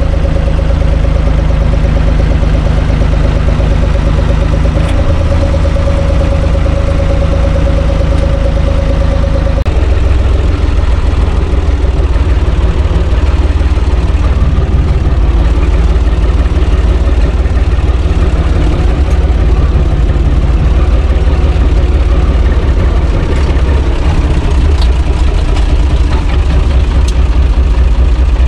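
Diesel engine of a UTB Universal 445 DT 4x4 tractor running while driving, heard from inside the cab. It holds a steady note for the first ten seconds or so, then the note changes and turns less even.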